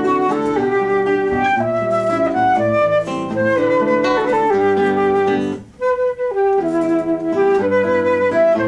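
Flute and guitar duo playing: a quick-moving flute melody over plucked guitar notes, with a brief break in the sound a little past the middle before both pick up again.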